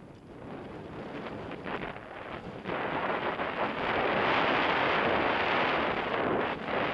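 Wind buffeting the microphone of a camera on a moving mountain bike, mixed with the tyres rolling over a dirt singletrack and a few short rattles from bumps. The rush gets much louder about two and a half seconds in.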